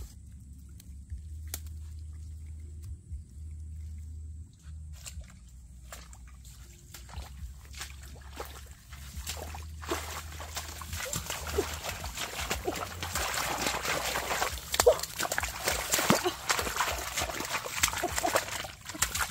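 Hands sloshing and splashing in shallow muddy water while groping for fish, a busy run of wet splashes that starts about halfway through and grows louder toward the end. Before it, only a low steady hum with a few small clicks.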